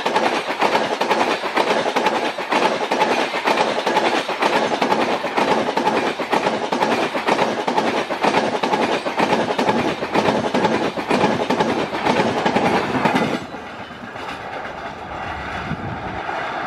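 Express train coaches passing close at speed, their wheels clattering rapidly and loudly over the rail joints. About 13 seconds in, the sound drops suddenly to a quieter, more distant rumble of the train running away.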